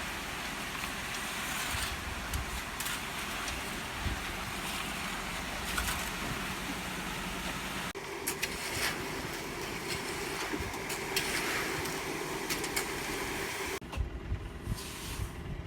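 Concrete mixer truck's engine running steadily, with scattered knocks and scrapes. The sound changes abruptly about eight seconds in and again near the end.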